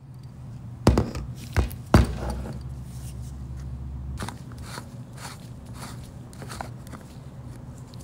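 Workbench handling noises: three sharp knocks in the first two seconds, then lighter clicks and taps, over a steady low hum.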